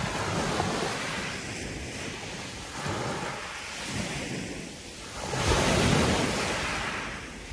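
Sea waves washing onto the shore, the surf swelling and easing, with the loudest wave about three-quarters of the way through.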